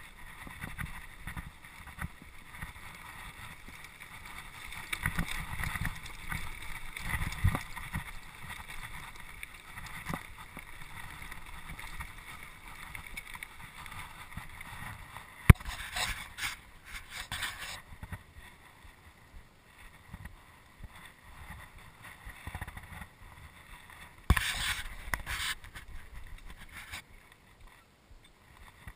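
Mountain bike riding down a rocky dirt singletrack, heard from a handlebar-mounted camera: tyres rolling over dirt and stones and the bike and mount rattling, with wind on the microphone. A sharp knock about halfway through, with louder bursts of hiss soon after and again near the end.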